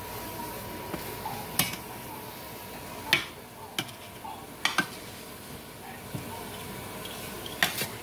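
Pumpkin seeds toasting in fat in a pot: a steady low sizzle, with several sharp clicks spread through it.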